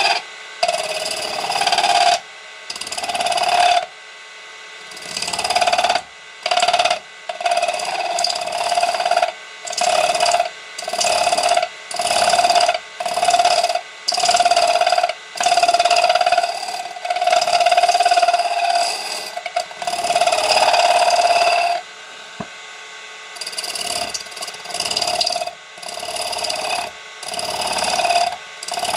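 A woodturning lathe tool cutting a spinning brass spindle: a harsh metal-on-metal screech with a steady ringing pitch. It comes in many short passes of about a second each, with brief quieter gaps as the tool lifts off, and a longer break about three quarters of the way through.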